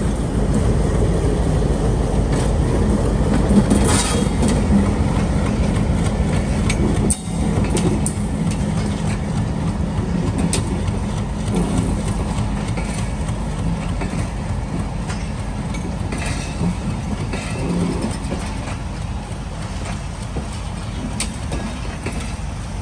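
Diesel-hauled passenger mail train rolling past and away: a steady rumble of wheels on rails with clickety-clack from the rail joints. The locomotive's steady hum fades out about halfway through, and the whole sound slowly dies down as the coaches recede.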